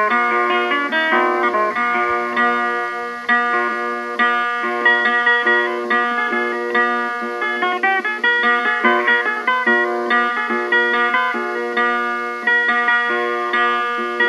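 Background music: a plucked guitar playing a quick, note-by-note melody over a repeating lower figure.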